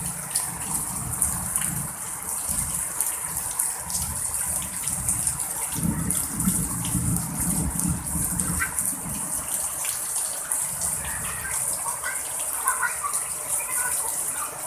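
Heavy rain pouring down steadily in a strong wind, a constant hiss with a low rumble that rises and falls.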